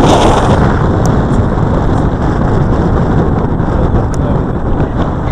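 Very strong mountain wind buffeting the camera's microphone: a loud, deep rumble that rises and falls a little but never lets up.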